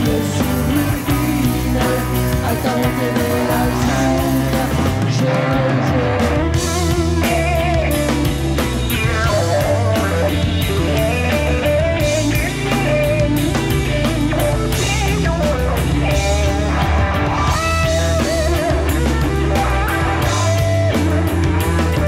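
Live rock band playing: electric guitars carry a wavering melodic line over bass and drums.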